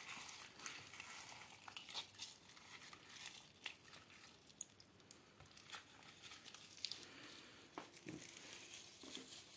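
Faint handling noise: scattered soft rustles and light clicks with near silence between them.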